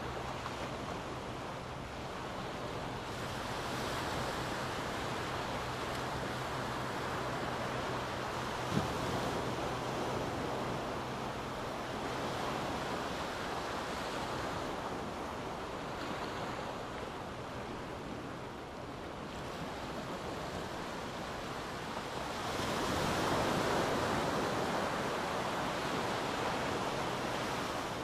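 Small waves washing up onto a sand beach: a steady surf wash that swells and ebbs, surging louder for a few seconds near the end. A single brief click comes about nine seconds in.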